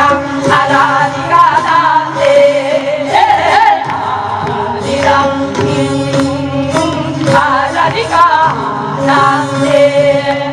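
Several women singing a Namdo minyo, a southern Korean folk song, together through microphones over amplified instrumental accompaniment with a steady beat.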